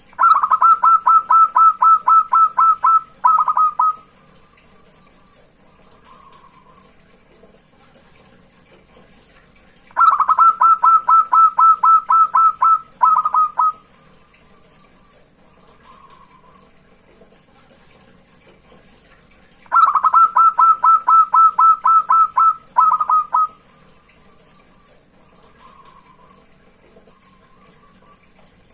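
Zebra dove (perkutut) song. Three bouts of rapid staccato cooing, each a run of about a dozen quick notes over some three seconds that ends in a couple of longer notes. The bouts come about every ten seconds, with faint soft coos in the gaps.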